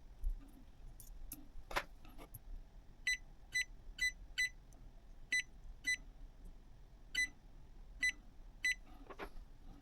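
A series of about nine short electronic beeps at uneven intervals, each a brief high tone, preceded by a few clicks and knocks.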